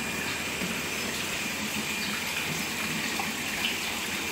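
Water gushing steadily from an inlet pipe into a concrete fish-rearing tank, splashing onto the water surface. The pipe carries river water pumped up to feed the tank.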